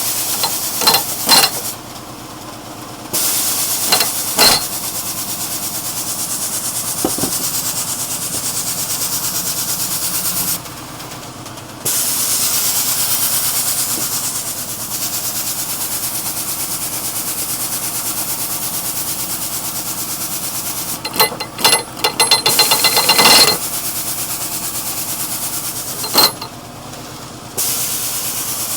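A 1-inch air impact wrench is run in long bursts on a large cylinder rod nut. Compressed air hisses loudly, and a spell of rapid hammering comes about 21 seconds in. An air compressor runs steadily underneath.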